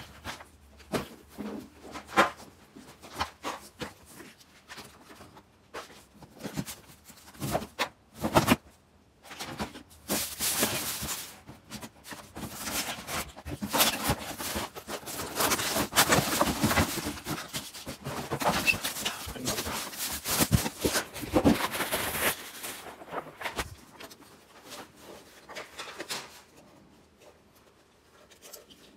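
Unpacking noise from a cardboard box: knocks and bumps as plastic vacuum attachments and hoses are lifted out. About ten seconds in, a long stretch of crinkling plastic bag as the wrapped vacuum body is pulled out.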